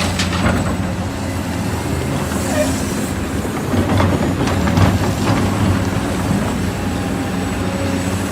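Heavy construction machine's diesel engine running steadily, with several sharp metallic clanks and knocks scattered through.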